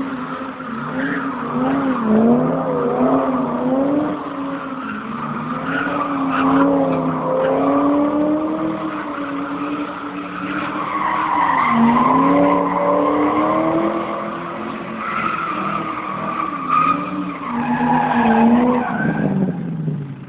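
V8 engine revved hard and repeatedly, rising and falling in pitch, while the spinning rear tyres squeal in a burnout. Near the end the revs drop away and the sound falls off.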